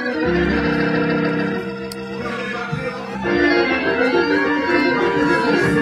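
Hammond B3 organ playing sustained gospel "preacher chords" over a low bass, the chords moving and getting louder about three seconds in.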